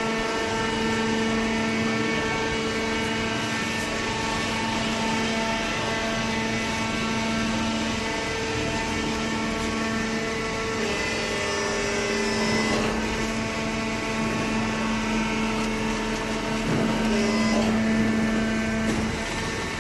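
Hydraulic baler's power unit, the electric motor and pump running with a steady hum, its pitch shifting slightly partway through and growing a little louder near the end.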